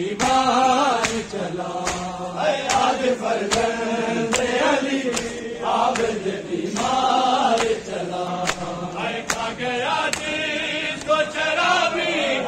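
A group of men chanting a Shia noha (lament), with the mourners' chest-beating (matam) landing in unison on the beat as a sharp slap a little more than once a second.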